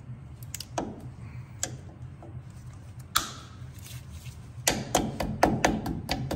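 Cutters and pliers working a steel cotter pin in a tie-rod end's castle nut, bending and trimming it: a few separate sharp metal clicks, one louder snip about three seconds in, then a quick run of clicks and taps over the last second and a half.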